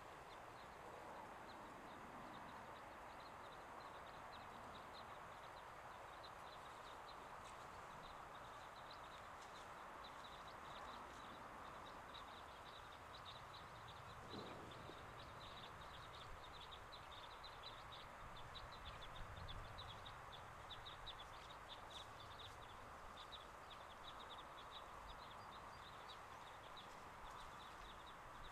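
Quiet outdoor ambience with faint, rapid, high-pitched bird chirping, busiest in the second half.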